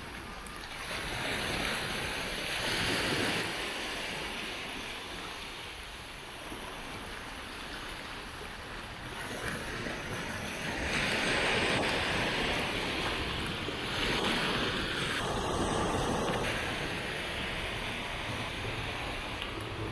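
Small sea waves washing onto a sandy beach: a steady surf hiss that swells and eases every few seconds.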